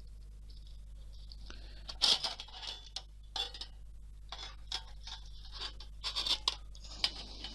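The casing of a computer power supply being prised open by hand: irregular scrapes, clicks and knocks of the cover panels, starting about two seconds in.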